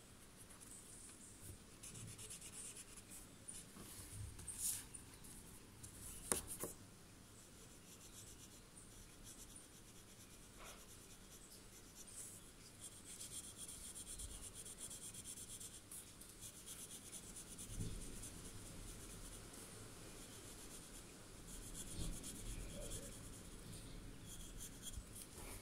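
Pencil shading on a paper tile: a soft, steady scratching of pencil on paper, with a few light clicks around five and six seconds in.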